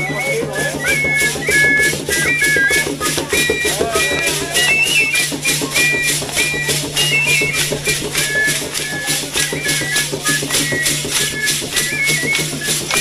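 Dance music for the sonajeros: a high flute plays a stepwise melody over the even, rhythmic shaking of sonaja rattles, with a steady low hum underneath.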